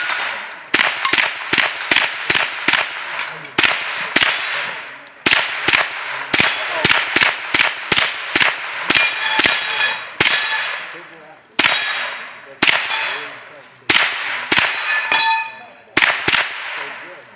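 Sig Sauer 522 .22 rimfire semi-automatic rifle fired in quick strings of shots with short pauses between them. Many shots are followed by the ring of steel target plates being hit.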